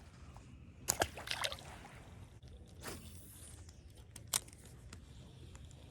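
Water sloshing and dripping as a small bass is released back into the water, with a few sharp clicks about a second in and one more past four seconds.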